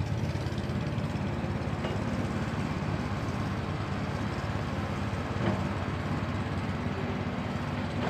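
Diesel engine of a Hitachi amphibious swamp excavator on pontoons running steadily while it digs in mud, with a single brief knock a little past the middle.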